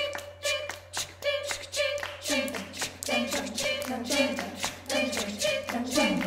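Choir singing a cappella over a steady clapped rhythm, about three claps a second. Upper voices hold a note, and lower voices join a little over two seconds in.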